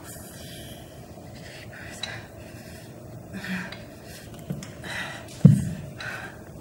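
Scattered rustling and small knocks from a performer pulling on socks and handling shoes on a stage floor, with one heavy thump about five and a half seconds in.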